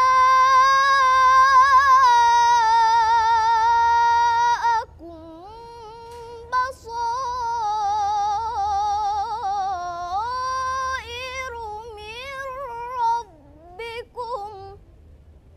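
A girl's solo voice reciting the Quran in a melodic, ornamented chant. It holds a long high note with a wavering vibrato for about five seconds. After a short pause it sings a second winding phrase of rising and falling turns, which ends about a second before the end.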